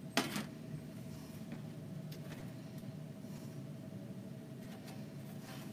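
A single sharp knock about a quarter second in as the round sign is set down flat on the cutting mat, then quiet room tone with a faint steady hum and light handling sounds.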